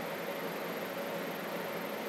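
Steady room tone: an even hiss with a faint steady hum underneath.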